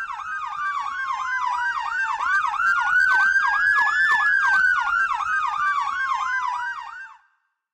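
Two fire engine sirens sounding together. One is a fast yelp, about three sweeps a second; the other is a slow wail that falls, rises to a peak about four seconds in, then falls again. The sound grows louder toward the middle and cuts off abruptly near the end.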